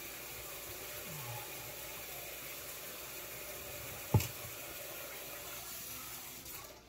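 Water running steadily from a kitchen tap, with one sharp knock about four seconds in; the flow stops near the end.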